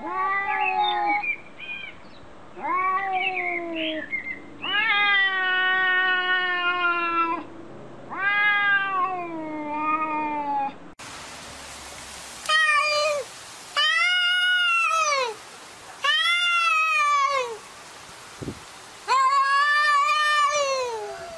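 Domestic cats in a territorial standoff, yowling at each other in long, wavering, drawn-out calls that trade back and forth and sometimes overlap. About eleven seconds in it changes to another cat's yowls: long calls that rise and fall in pitch, about one every two seconds.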